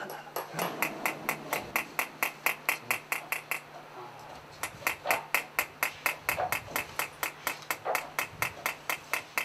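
Rapid, even hammer strikes on metal, about five a second, each with a bright ring, pausing for about a second partway through: a metalsmith hammering metalwork.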